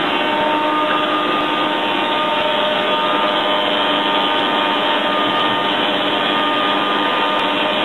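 Two spindle shapers, an SCMI T130 among them, running with power feeders driving planks past the cutters: a loud, steady machine noise with a few steady tones in it.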